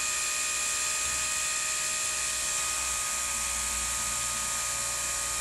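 Small electric motor and propeller of a toy flying orb ball spinning steadily: a constant whir that holds one pitch without change.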